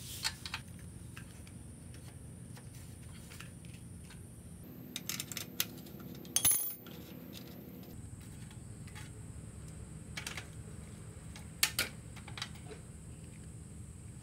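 Scattered metal clicks and clinks from a rusted kids' bicycle's steel training-wheel bracket being handled and worked off the rear wheel. The loudest cluster of clinks comes about halfway through.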